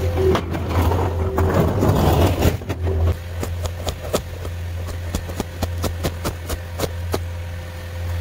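Caterpillar 246D skid steer's diesel engine running while its snow blade scrapes and crunches through slabs of refrozen ice. About three seconds in the scraping stops abruptly and the engine carries on steady and more distant, under a string of sharp clicks.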